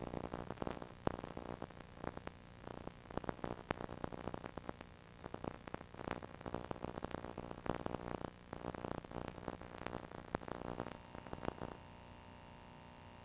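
Faint crackling static: irregular clicks and pops over a low steady hum. The crackle stops about 12 seconds in, leaving the hum and a faint steady tone.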